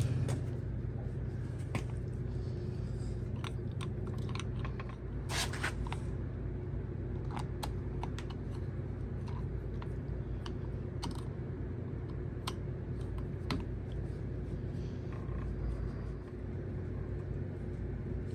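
Scattered small clicks and taps of plastic parts being handled as the battery cover is fitted onto the keypad door knob, over a steady low hum.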